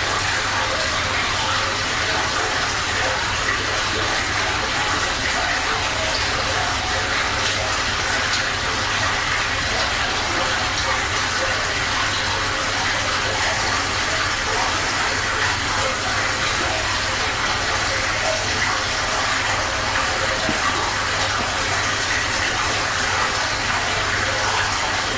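Steady rush of water from an aquarium filter, with a low hum underneath.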